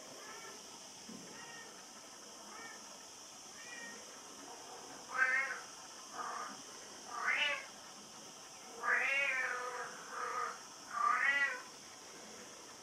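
Young Bengal kittens mewing: a few faint, thin mews at first, then six louder high mews from about five seconds in, one of them drawn out near nine seconds.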